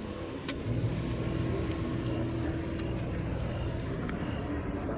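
Crickets chirping in a steady pulse, over a low steady hum like an engine that comes in about a second in. One sharp crack sounds near the start.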